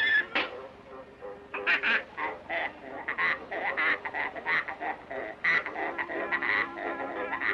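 Cartoon sound effect of a sow squeezed like an accordion: after a loud opening note and a short lull, a run of short pitched squawking notes, a few a second, played in time like a tune.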